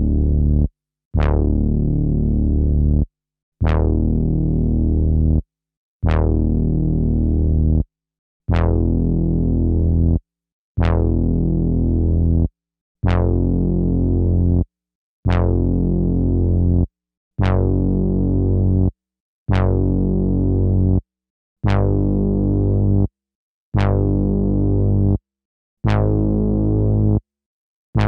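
An Akai MPC sampler plays a sampled synthesizer note again and again, about thirteen times. Each note has a sharp bright attack, holds for about two seconds and cuts off abruptly, with the pitch changing from note to note.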